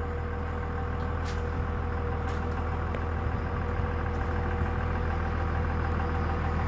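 Steady low mechanical drone of an idling engine, with a few faint ticks scattered through it.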